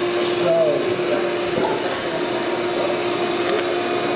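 Steady machine drone with one constant hum note, like a running fan or motor, with faint voices in the background.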